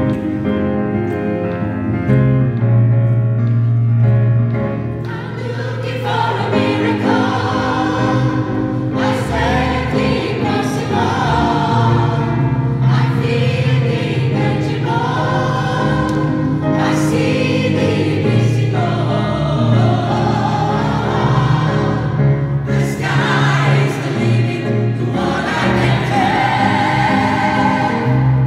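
Gospel choir of women's and men's voices singing over a steady low accompaniment, the voices swelling in about five seconds in.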